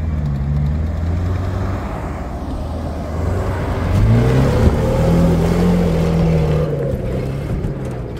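Off-road vehicle engine running at low revs, then revving up about four seconds in. It holds the higher revs for a couple of seconds and eases off near the end.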